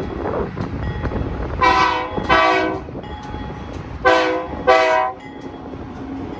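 Diesel locomotive horn sounding four short blasts in two pairs, a pause between the pairs, over the continuous rumble of a passing freight train.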